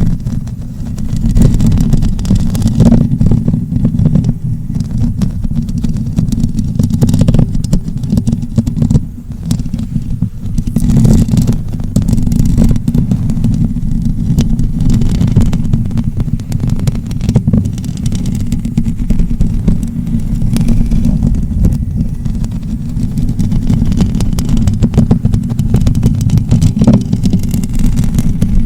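Close-up ASMR rubbing or scratching right on the microphone: a loud, continuous low rumble of friction noise.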